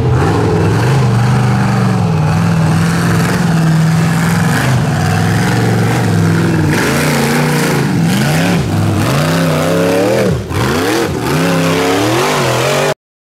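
Off-road rock buggy's engine running hard under load as it climbs a steep dirt hill. It holds steady revs at first, then is revved up and down repeatedly through the second half, and cuts off abruptly near the end.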